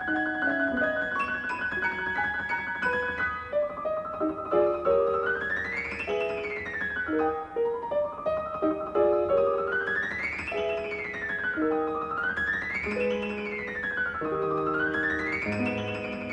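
Piano music: single notes and chords, with quick runs that climb and fall back again several times from about four seconds in.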